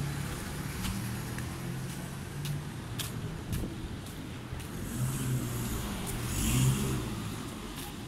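A motor vehicle's engine running close by in street traffic, with its sound swelling to its loudest about six to seven seconds in as it passes.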